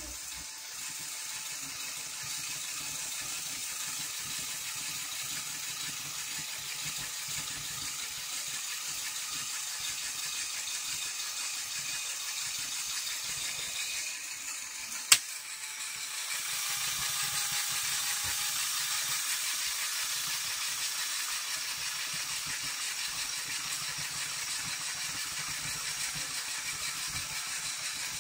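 Plastic gears and linear actuators of a LEGO Technic 42024 container truck worked by hand, a steady mechanical rattle as the skip-loader arms swing the skip down and lift it back up, with one sharp click about halfway through.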